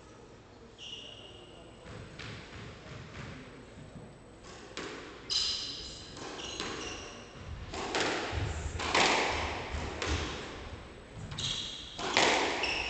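Squash ball being struck by rackets and smacking off the court walls, with short high squeaks of players' shoes on the wooden floor. The hits come closer together and louder in the second half.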